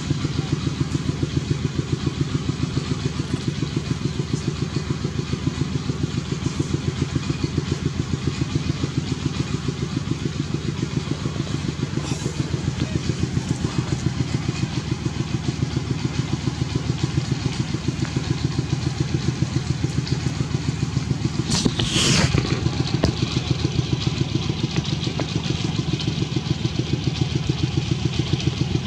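A small engine running steadily with a rapid, even pulse. A brief sharp sound cuts in about three-quarters of the way through.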